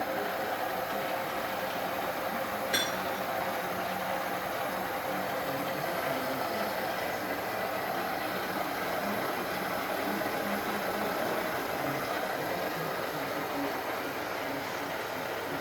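Arboga UFB 3008 drilling and milling machine running with a steady, even mechanical noise, with a single sharp click about three seconds in.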